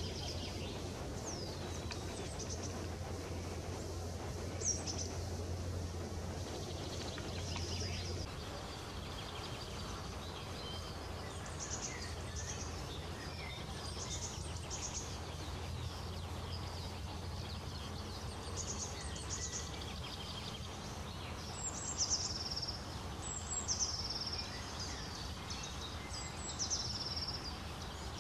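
Wild songbirds singing short, high phrases in the background, several falling quickly in pitch near the end, over a steady low background hum.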